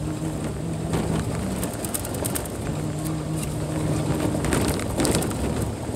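Car coasting down a dirt road in low gear. A steady engine hum fades in and out over tyre noise on the dirt surface, with scattered sharp crackles from the wheels on loose gravel.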